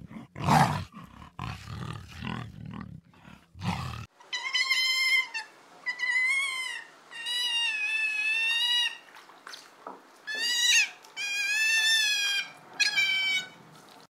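A leopard's rough, breathy grunts, four or five short bursts. About four seconds in, these give way to a different animal's high-pitched squeals: about six drawn-out calls, each roughly a second long and wavering slightly in pitch.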